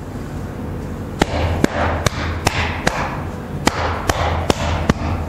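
A flat hand patting the chest in a steady rhythm, about two to three dull slaps a second, starting about a second in: chest-patting self-massage over the lungs.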